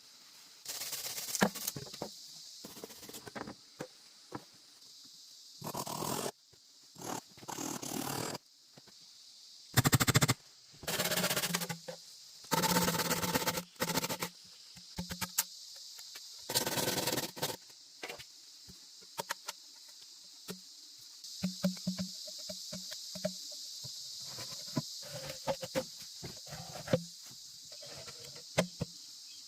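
A steady, high-pitched insect chorus underneath a run of loud, noisy bursts of one to two seconds each and many sharp knocks and clicks, like hand work on wood or bamboo.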